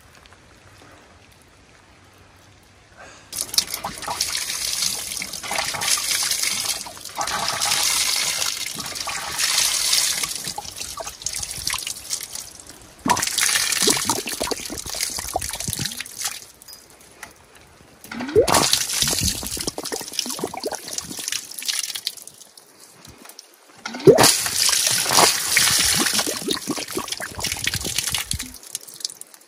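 Water pouring from an outdoor stainless-steel spout and splashing over a bunch of freshly pulled carrots as they are rinsed. It comes in four spells with short pauses between them, starting about three seconds in.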